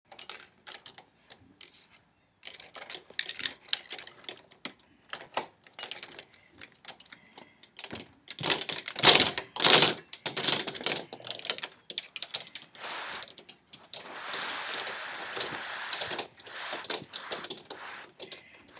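Irregular clicks, taps and scratching close to the microphone, loudest in a dense cluster about halfway through, followed by a steadier scratchy rustle for a couple of seconds.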